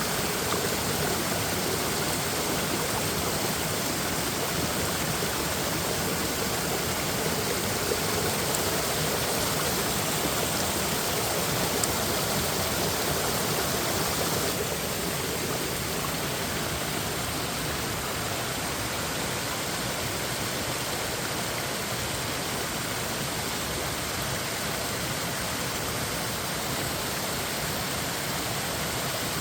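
Mountain stream rushing and splashing over rocks in a steady rush of water, which shifts and drops a little about halfway through.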